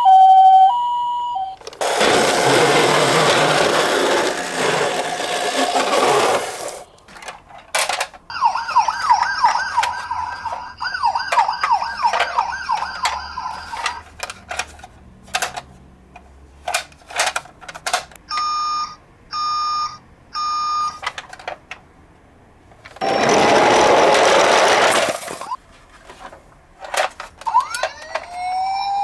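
Emergency-vehicle siren sound effects, one after another. Briefly at the start there is a two-tone hi-lo ambulance siren (the Japanese 'pee-po'). Then comes a rapid yelping siren for several seconds, three electronic beeps, and a slow rising-and-falling wail near the end, with two loud bursts of noise and scattered clicks in between.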